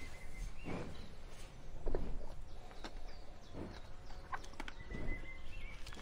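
Cattle grazing: grass tearing and being chewed, an irregular rip of noise roughly once a second, with light clicks in between.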